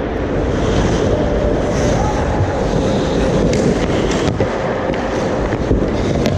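Ice hockey play right at the goal: skates scraping the ice, and sticks and puck clattering, over a steady rushing noise, with a few sharp clacks.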